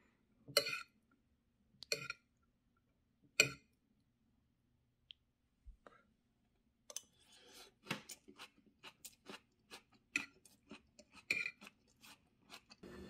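A metal fork clinks against a ceramic plate three times, about a second and a half apart. Then, from about halfway in, close-up chewing of food with many small clicks and smacks.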